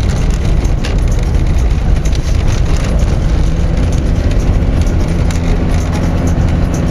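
Car driving on a dirt road, heard from inside the cabin: a steady low rumble of tyres on gravel and engine, with scattered small clicks and rattles.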